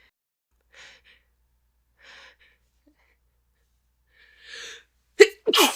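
A woman's soft, catching breaths, three of them, building up to a loud sneeze near the end.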